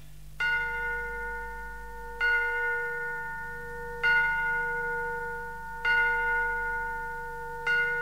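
Left-channel identification test signal from a reel-to-reel tape recorder's factory demonstration tape: a bell-like chime struck five times at the same pitch, about every two seconds, each strike ringing and fading.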